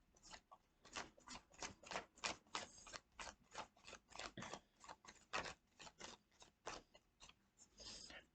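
Tarot cards being shuffled by hand: a faint, uneven run of quick card clicks and snaps, several a second.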